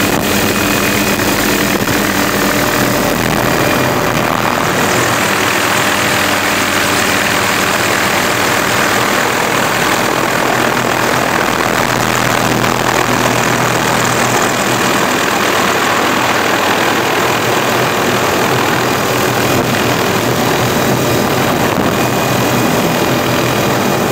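Helicopter engine and rotor heard from inside the cabin: a steady, loud din with a constant low hum underneath.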